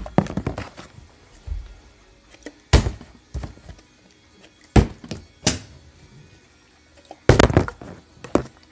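Small plastic water bottle, partly filled with water, tossed and landing on a tabletop: sharp knocks every second or two, with a quick cluster of knocks about seven seconds in.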